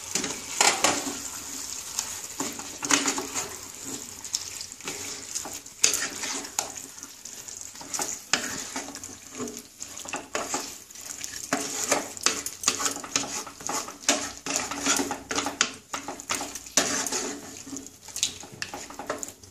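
A wooden spatula stirring and scraping chicken pieces in thick masala around a nonstick pan, in many short, irregular strokes, over a steady sizzle of the meat frying. The curry is being fried down, stirred until its remaining water cooks off.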